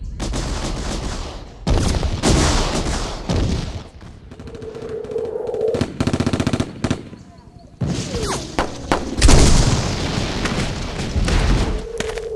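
Loud added sound effects: booms and sharp hits, with a fast gunfire-like rattle around the middle. A steady low hum comes in twice, about halfway through and again at the very end.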